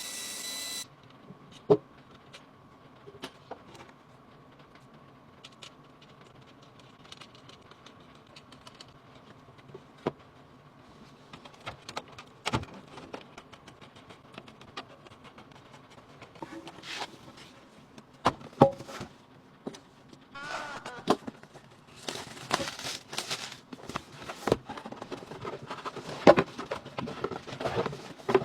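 Scattered clicks, taps and knocks of hands handling computer parts during a PC build, becoming busier with scraping and rattling near the end. A short steady electronic tone stops just under a second in.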